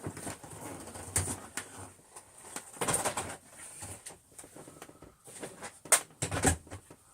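Dry crunchy debris being scattered and spread by hand on a hard floor: irregular rustling, crackling and small clicks, with the loudest rattles a few seconds in and again near the end.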